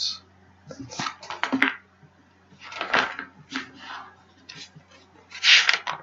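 Handling noise close to the microphone: about half a dozen short rustles and clatters, the loudest near the end, over a faint steady hum.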